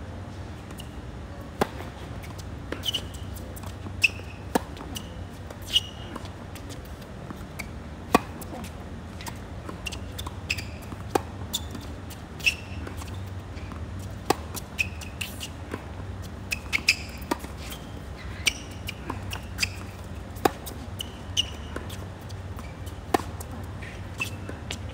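Tennis rally on a hard court: sharp pops of the ball off racket strings and bounces off the court, about one every second or so, with short high shoe squeaks between them, over a steady low hum.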